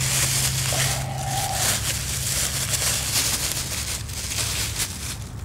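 Footsteps crunching and rustling through forest undergrowth, with irregular crackles. A short steady tone sounds briefly about a second in.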